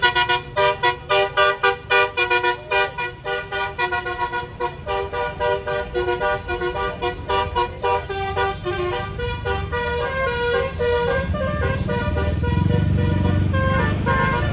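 A tour bus's telolet basuri horn plays a tune of short, quick notes, about three or four a second at first, then longer, smoother notes. A bus engine runs underneath and grows louder near the end.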